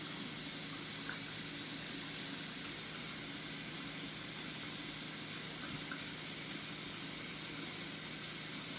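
Bathroom sink tap running in a steady stream, left on so the cold water warms up.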